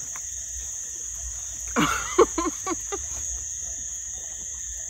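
Steady high-pitched insect chorus. About two seconds in comes a brief cluster of voice-like sounds, the loudest moment.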